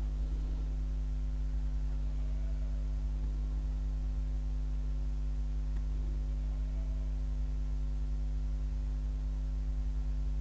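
Steady low electrical hum with a stack of higher overtones, mains hum picked up by the recording microphone, over a faint hiss. There is one faint click about six seconds in.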